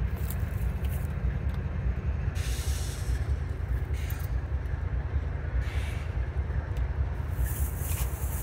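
Distant diesel freight locomotive giving a steady low rumble. Three brief bursts of hiss come through above it, about two, five and a half, and seven and a half seconds in.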